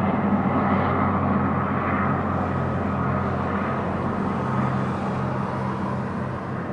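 Eurocopter AS350 Écureuil single-engine turbine helicopter flying past, its rotor and turbine making a steady, low, humming drone that slowly fades as it moves away.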